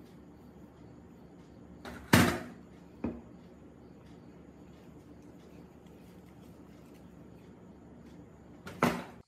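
Sharp knocks over a low steady hum: a loud one about two seconds in, a lighter one a second later, and another near the end, as parts or tools are handled during the pump restoration work.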